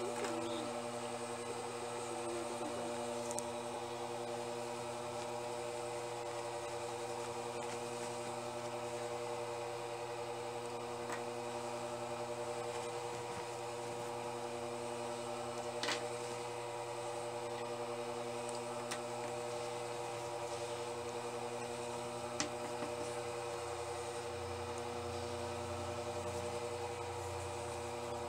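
Steady electric hum of an idling Jontex industrial sewing machine's motor, left running while the needle is stopped, with light fabric handling and a couple of faint clicks.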